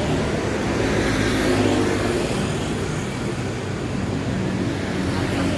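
Street traffic: motor vehicles running and passing, with one passing closer and louder about one and a half seconds in.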